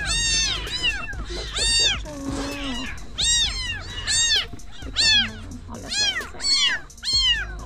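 Several young orphaned kittens mewing over and over, high-pitched cries that rise and fall, about two a second. These are the distress cries of kittens left without their mother.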